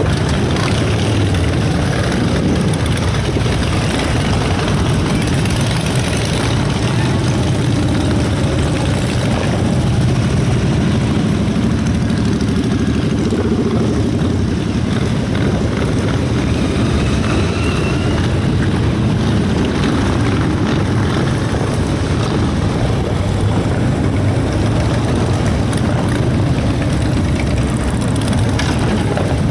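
Engines of a procession of motorcycles, cars and trucks running steadily as they drive past, a continuous low engine noise with no breaks.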